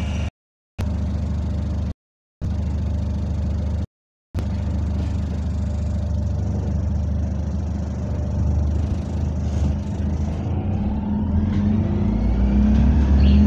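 Bus drivetrain heard from inside the lower deck: a steady low drone while the bus stands, with the sound cutting out completely three times in the first four seconds. From about ten seconds in the bus pulls away, with a rising whine from the motors and the low drone growing louder.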